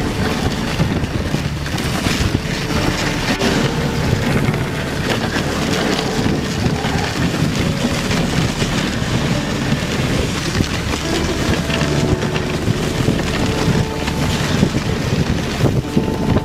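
Steady rushing wind noise on a microphone riding a moving dog sled, mixed with the hiss of the sled's runners sliding over snow as the dog team pulls.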